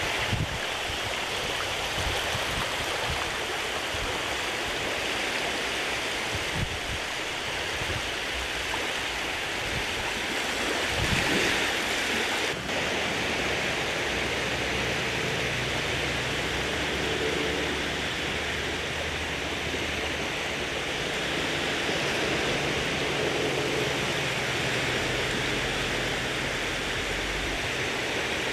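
Shallow sea water washing and rippling over sand at the sea's edge: a steady, even hiss.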